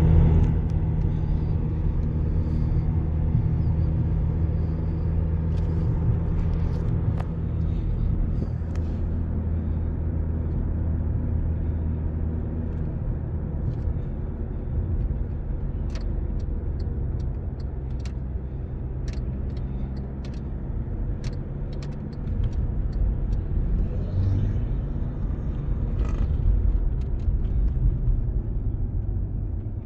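Volkswagen Passat B7 on the move. A steady engine hum eases off over the first few seconds and gives way to low road and tyre rumble, with a scatter of light ticks midway.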